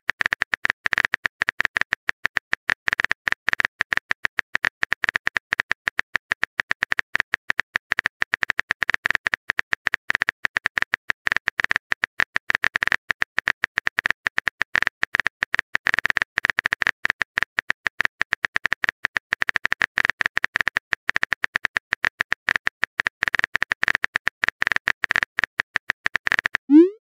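Rapid, continuous keyboard-typing clicks from a texting app's typing sound effect, many per second, ending in a short rising swoop as the message is sent.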